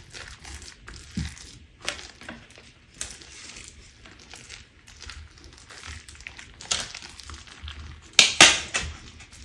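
Crunch slime being worked and squeezed, crackling and popping irregularly, with a loud cluster of crackles near the end.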